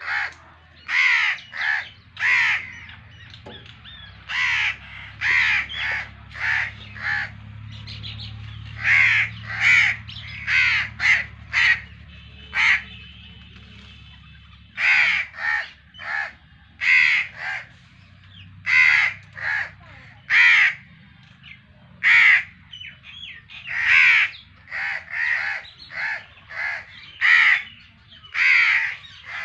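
Crows cawing over and over, harsh calls coming one or two a second in uneven clusters. A faint low hum sits underneath in the first half.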